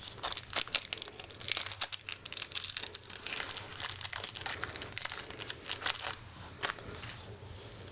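Plastic packaging crinkling and crackling as it is handled, a dense irregular run of crackles, while a wall outlet cover plate is unwrapped and fitted.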